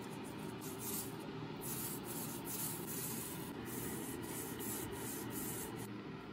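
Small paint roller rubbing back and forth as it spreads black paint over a wooden cabinet door, a steady scrubbing sound with repeated strokes.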